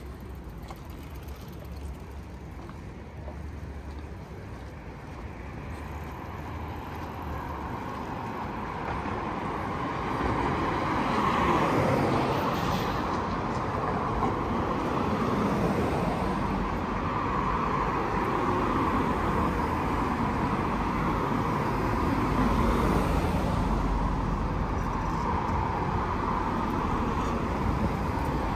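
City street traffic: cars and other vehicles driving past in a steady hum that grows louder over the first third and then stays loud.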